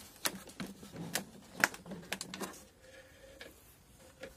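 Irregular light clicks and knocks of a car headlight unit being handled just after it has been pulled free of its mounting. The sharpest click comes about one and a half seconds in, and the clicks are fainter near the end.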